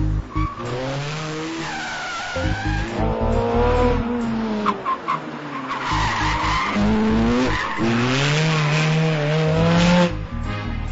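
Ferrari 430 Scuderia's 4.3-litre V8 revving hard under acceleration. Its pitch climbs and then drops back at each quick upshift, several times over, as the car drives past.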